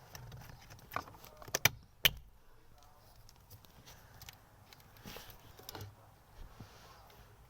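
Several sharp clicks and knocks in the first two seconds or so, then fainter scattered taps.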